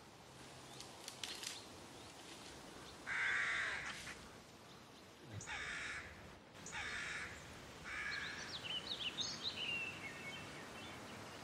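A crow cawing four times, harsh calls a second or two apart, followed by a small songbird's quick high chirps near the end.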